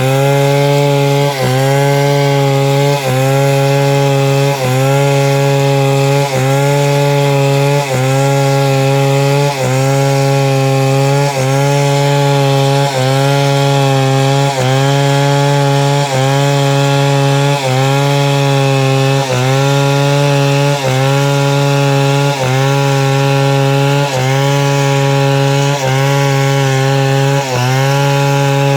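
Chainsaw running hard while rip-cutting a log lengthwise into planks. The engine holds a steady high pitch, dipping briefly and recovering about every second and a half.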